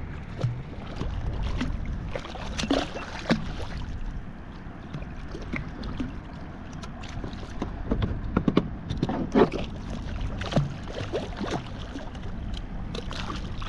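Water sloshing against a fishing kayak, with scattered knocks and splashes while a hooked jack crevalle is fought to the boat.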